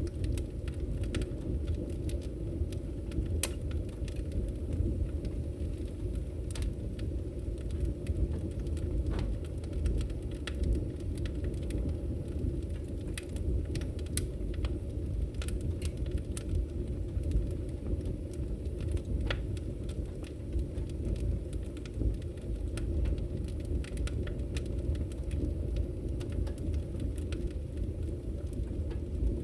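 Campfire burning: a steady low rumble of the fire with scattered sharp crackles and pops at irregular moments.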